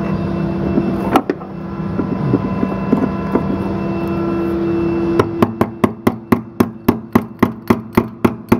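Hammer blows on a stuck part of the car's shifter assembly: a quick, even run of sharp strikes, about three a second, starting about five seconds in. Before that, a steady hum and a single knock about a second in.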